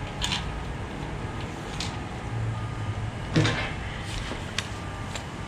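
A few short metallic clanks and knocks of engine parts and tools being handled in a garage, the loudest about three and a half seconds in, over steady background noise.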